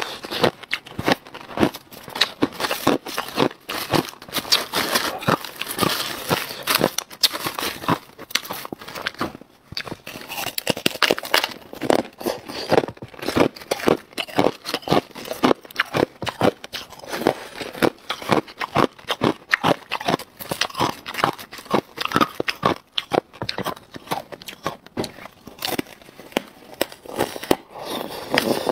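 Close-miked crunching of crushed clear ice being chewed, a dense, continuous run of sharp crackling crunches, with ice pieces clinking in a plastic bowl as fingers pick them out.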